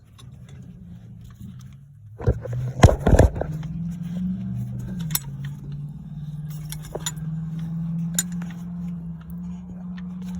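Steel C-clamp clinking and clanking against the brake caliper as it is handled and turned to push the caliper piston back, with a burst of loud clanks a couple of seconds in and scattered clicks after. A steady low hum runs underneath.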